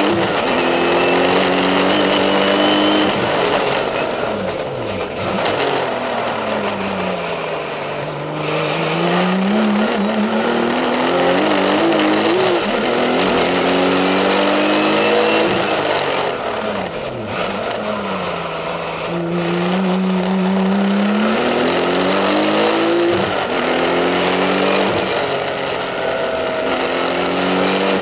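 Porsche 911 TurboCup's turbocharged flat-six, heard from inside the cockpit, driven hard at race pace. The engine note climbs again and again and drops at each gear change. Several times it sinks low and builds back up as the car brakes and downshifts for corners, then accelerates out.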